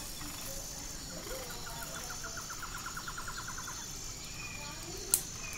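Outdoor background over a steady hiss: a rapid trill of about a dozen quick notes in the middle, and one sharp click near the end.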